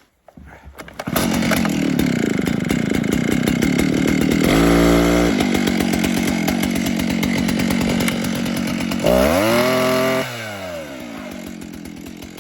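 Vintage Stihl 08S two-stroke chainsaw starting about a second in and idling just after a cold start. It is blipped to high revs twice, once briefly near the middle and once with a rise and fall near the end, then drops back to a quieter idle.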